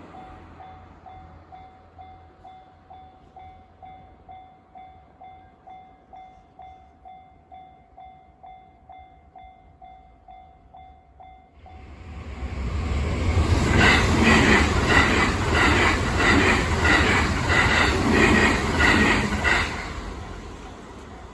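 A railway level-crossing warning bell rings, a pulsed tone about twice a second. About twelve seconds in, a JR Hanwa Line electric train rushes through the crossing, drowning the bell with a loud rumble and a rhythmic clatter of wheels over rail joints. The train fades near the end, leaving the bell audible again.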